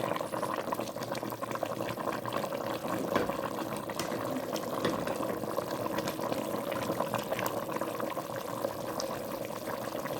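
Pot of beef and chicken boiling in its seasoned stock, a steady bubbling with many small pops.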